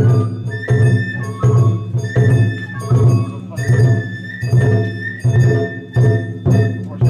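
Sawara-bayashi festival music played live by a float's musicians: a shinobue bamboo flute melody over steady taiko drum beats, with sharp metallic strikes of a small hand gong.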